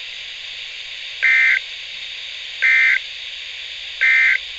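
Emergency Alert System end-of-message data tones: three short, identical buzzy bursts, each under half a second and about a second apart, over steady radio hiss. They mark the end of the flood warning broadcast.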